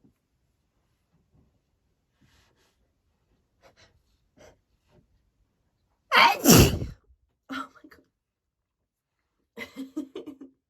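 A woman's single loud sneeze about six seconds in, an allergy sneeze set off by a scented candle, after a few faint breaths. A few brief sounds follow it, and near the end there is a quick run of short voiced sounds.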